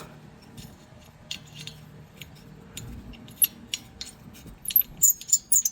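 Small metal parts clinking as a bolt and brake line bracket are handled, with scattered sharp clicks and then a quick flurry of bright metallic clinks about five seconds in.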